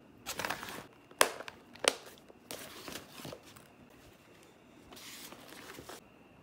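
Objects being handled and packed into a fabric duffel bag: rustling and crinkling, with two sharp clacks about a second and two seconds in.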